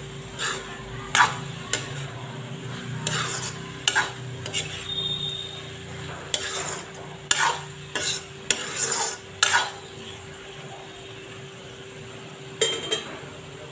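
A spatula scraping and stirring chopped taro frying in oil in a metal kadai, with a steady low sizzle underneath. The strokes are irregular, mostly in the first ten seconds, with one more scrape near the end.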